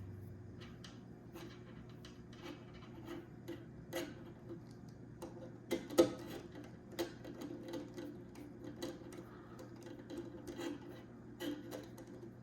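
Small irregular clicks and taps of wire leads and a small connector being handled and connected by hand, with sharper clicks about six and seven seconds in, over a faint steady hum.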